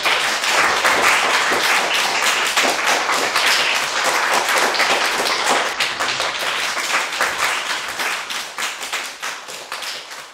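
Audience applauding: many overlapping handclaps, dying away near the end.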